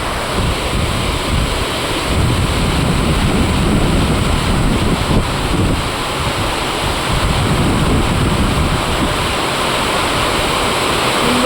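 Heavy rain falling in strong wind, a steady rush with wind buffeting the microphone in uneven gusts.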